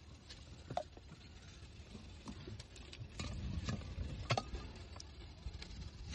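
Scattered clicks and knocks from a hand-lever cast-iron citrus press and a plastic cup being handled as sweet-lemon halves are squeezed, the loudest knock about four seconds in, over a low rumble.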